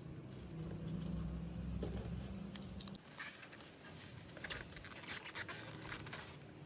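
A low steady hum that stops abruptly about three seconds in, followed by faint scattered scraping and clicking.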